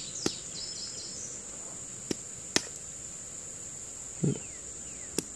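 A steady high-pitched insect drone, with a few sharp taps scattered through it, the sound of the round concretion being struck to see whether it breaks up.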